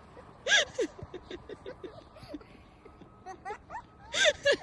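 Children's shouts and squeals mixed with scattered voices and laughter, with two louder high-pitched squeals, one about half a second in and one near the end.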